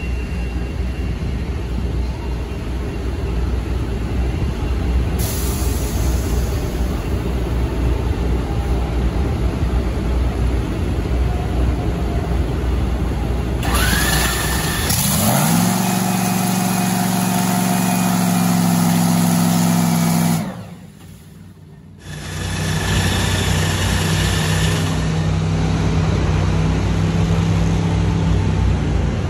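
Drag-racing engines running loud: a steady heavy rumble, then about halfway an engine note rises sharply and holds high and steady for several seconds. The sound breaks off abruptly for a moment, and the held note returns before sinking back into the rumble.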